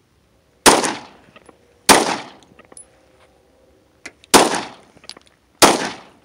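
Ruger SR9 9mm pistol firing four shots: two about a second apart, a pause of over two seconds, then two more. Each shot has a short ringing tail, with faint clicks between shots.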